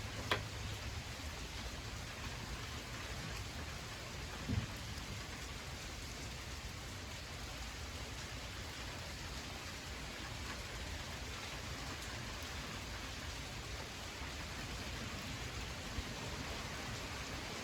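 Heavy rain pouring steadily, with a short click just after the start and a brief dull thump about four seconds in.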